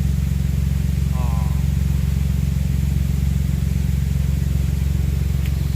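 A small engine or motor running steadily with an even, low-pitched drone, with a voice briefly over it about a second in.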